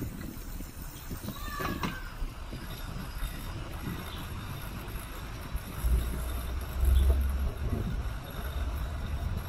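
Wind buffeting the microphone and the tyres rumbling on the cycle track as a bicycle rides along. It is a low rumble that swells strongest about six to seven and a half seconds in.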